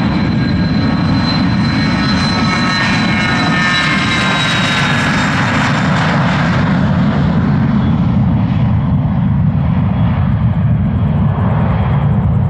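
Cessna Citation Latitude's twin Pratt & Whitney Canada PW306D turbofans at takeoff power on the takeoff roll: a loud, steady rumble with a high whine that drops in pitch as the jet passes about five seconds in, then the whine fades as it moves away.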